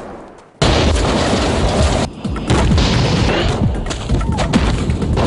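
Action-trailer soundtrack: booming impacts and crashes over a dramatic music score. It cuts in suddenly about half a second in after a near-quiet moment, with a brief dip about two seconds in.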